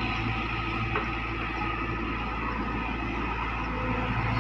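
Diesel engine of a Hitachi Zaxis crawler excavator running steadily with a low hum while the machine slews its upper body round, getting a little louder near the end.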